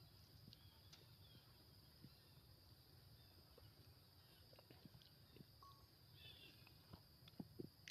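Near silence: faint outdoor background with a steady high hiss and scattered soft clicks, a few slightly louder ones near the end.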